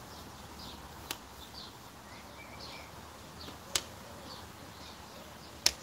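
Naan dough being kneaded by hand on a floured tabletop, with three sharp knocks about a second in, near the middle and near the end. Faint bird chirps sound in the background.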